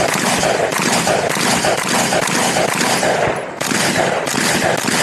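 Rifle fired rapidly, shot after shot in quick succession with echo off the range, with a brief let-up about three and a half seconds in.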